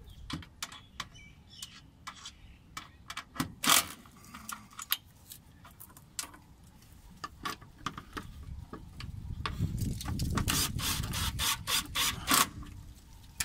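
Makita 18V cordless impact driver running for about four seconds near the end, tightening a bolt, after scattered clicks and clinks of tools and sockets being handled.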